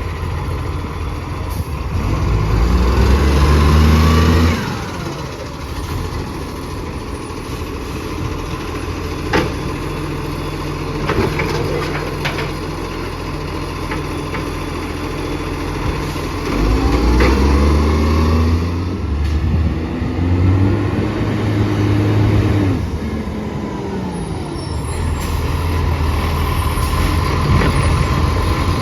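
Recycling garbage truck's engine running and revving up twice, a few seconds in and again past the halfway point, with a few short sharp sounds in between. The truck has an exhaust leak.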